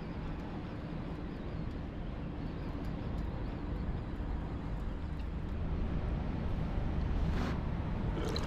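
Boat engine running with a steady low drone, with a brief noisy rustle about seven seconds in.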